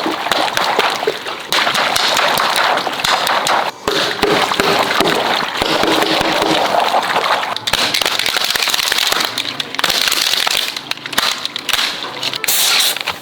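Water rushing and splashing with a steady crackle of small pops, dropping out briefly about 4 and 7.5 seconds in.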